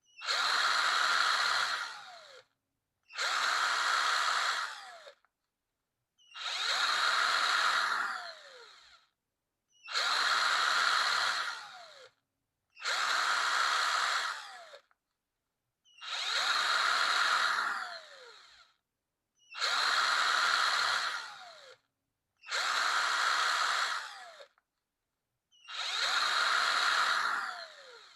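Power drill run in short bursts: the trigger is squeezed for about two seconds, then released so the motor's whine falls in pitch as it spins down, nine times over with a second of silence between runs.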